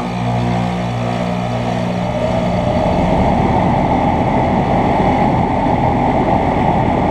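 The outdoor condensing unit of a 2012 American Standard 4-ton central air conditioner running just after starting up. A loud, steady hum is strongest for the first two and a half seconds. A rush of air then builds and takes over, and the unit runs on steadily.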